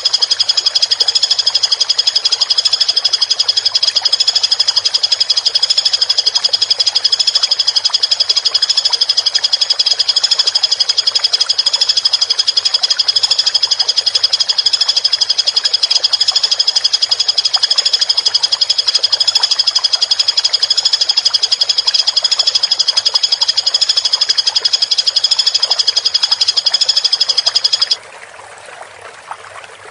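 Woodpecker giving a fast, unbroken high rattling trill over a steady sound of running water; the trill cuts off suddenly about 28 seconds in, leaving only the water.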